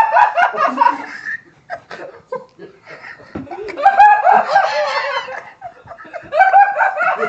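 Loud laughter in three bouts: one at the start, a longer one about four seconds in, and a shorter one near the end.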